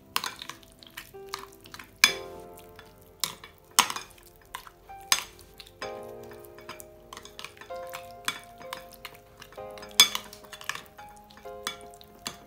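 Metal spoon stirring thick tomato-paste sauce in a glass bowl, clinking and scraping against the glass in sharp knocks at irregular intervals.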